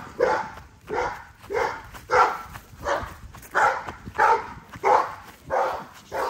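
American bully puppies barking repeatedly in short, evenly spaced barks, about one every two-thirds of a second, while tugging on a rope toy.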